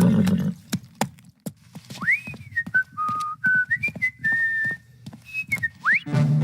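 A person whistling a short, jaunty tune, with irregular clacks of typewriter keys. The whistle starts about two seconds in and ends with a quick upward slide.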